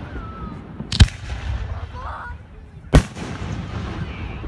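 Aerial firework shells bursting overhead: two sharp, loud bangs about two seconds apart, the first about a second in and the second about three seconds in.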